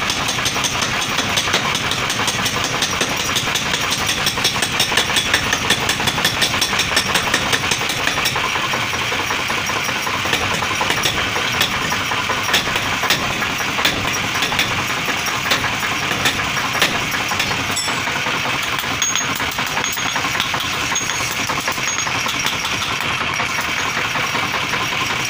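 Mechanical forging power hammer running, its ram striking a red-hot sickle blade in rapid repeated blows over a steady machine drone.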